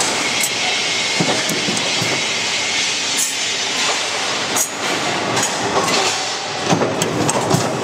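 Steady factory machinery noise with scattered metal clanks and clicks as steel rods are handled on a steel jig.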